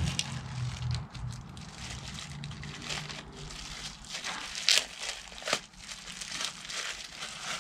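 Rustling and crinkling of parts being handled, with scattered clicks and knocks and one sharp click a little past halfway. A low hum is under it for the first few seconds.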